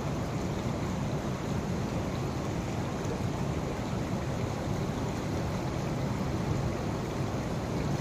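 Floodwater from an overflowing lake rushing across a road in a steady, low rushing noise.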